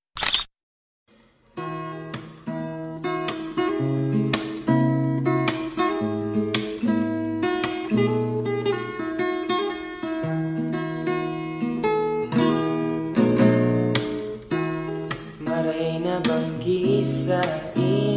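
A camera-shutter click, then acoustic guitar music strummed in a steady rhythm, starting about a second and a half in. A singing voice comes in near the end.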